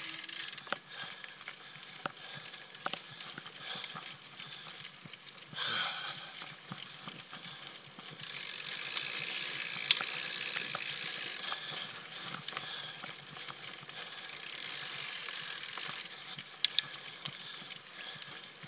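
Mountain bike rolling along a dirt trail: steady tyre and riding noise with the rear hub's freewheel ratcheting while coasting, and scattered small clicks and rattles. Two sharp knocks stand out, the loudest about ten seconds in and another near the end.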